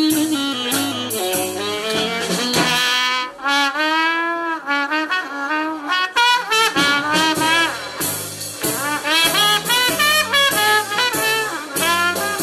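Brass-led jazz music playing back through a Telefunken HP 830 T stereo boombox, its melody swooping up and down over a stepping bass line.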